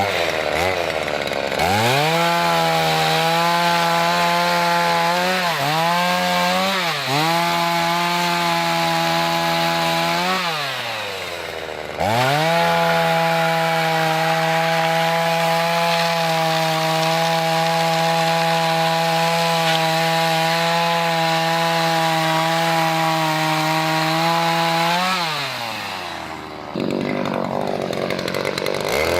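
Small two-stroke chainsaw revving to full throttle and cutting through firewood logs in two long runs: one of about ten seconds, with the pitch dipping briefly twice, then a steadier one of about thirteen seconds. Near the end the engine drops back to idle, then revs up again.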